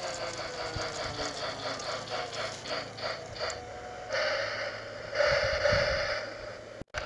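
Battery-powered toy steam locomotive running on plastic track: a regular clicking about four times a second, with a motor whine that falls in pitch as it slows. It is followed by two hissing bursts of about a second each.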